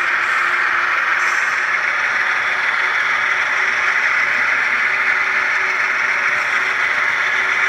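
Sound-equipped HO scale ES44 diesel locomotives in a multi-unit lash-up, their speakers playing a steady, hissy diesel engine sound with a faint hum, while the consist runs.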